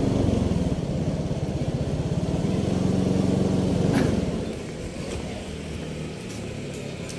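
Motorbike engine running steadily while riding along the road, heard from the rider's seat with road and wind noise. About four and a half seconds in it cuts off to a quieter steady background.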